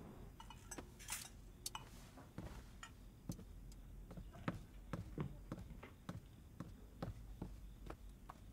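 Faint, irregular clinks and taps of plates, serving tongs and cutlery as food is laid out on a table, roughly one or two light knocks a second.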